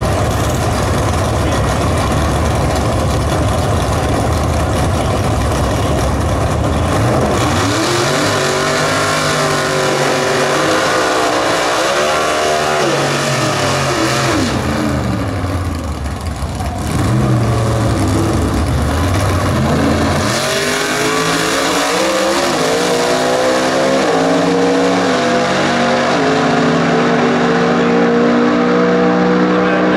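Early-1950s Chevrolet gasser drag car's engine, loud throughout. It rumbles at first, then revs up and down repeatedly in a tyre-smoking burnout. After a short lull about two-thirds in, it launches into a full-throttle pass, its pitch climbing in steps through the gear changes.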